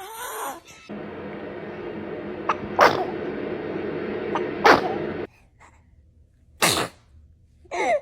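A baby sneezing: four short, sharp sneezes about two seconds apart. The first two come over a steady hiss that stops suddenly about five seconds in.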